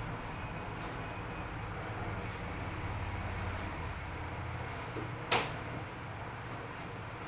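Steady low hum with one sharp knock about five seconds in.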